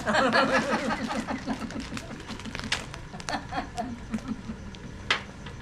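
Voices talking for about the first two seconds, then fading, followed by scattered sharp clicks and knocks, the loudest about five seconds in.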